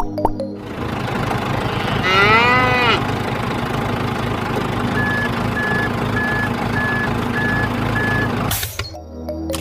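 Truck engine running steadily, with a cow mooing once about two seconds in and a reversing alarm beeping six times at an even pace in the second half. The engine sound cuts off abruptly near the end.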